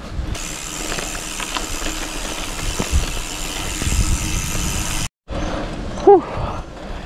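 Steady road and wind noise while riding a bicycle, which cuts off abruptly about five seconds in. Quieter riding noise follows, and about a second later there is a brief, loud rising-and-falling tone.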